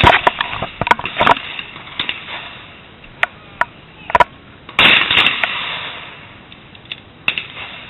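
Shotgun reports at a clay-shooting range: a loud bang at the start and another just under five seconds in, each trailing off over about a second, with sharp clicks and knocks in between.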